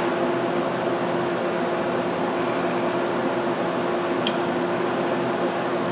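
Welding machine running with a steady hum and hiss, and one short click about four seconds in.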